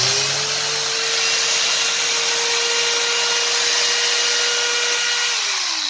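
Interskol PTs-16/2000T 2 kW electric chainsaw test-running after a new armature, bearings, brushes and drive sprocket were fitted. Its motor's whine rises quickly and holds steady over a loud rushing hiss, then winds down near the end as the motor coasts to a stop.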